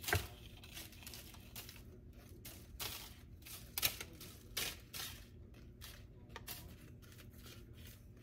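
Silicone spatula scraping a buttered graham cracker crumb mixture out of a glass bowl, with crumbs falling onto parchment paper, in a series of short, dry scrapes. The sharpest come just after the start and about four seconds in.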